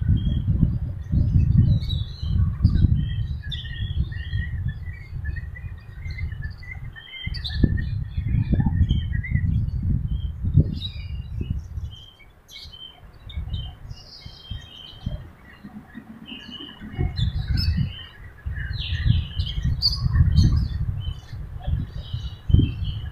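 Wind buffeting the microphone in uneven gusts, easing off for a few seconds about halfway through, with small birds chirping throughout.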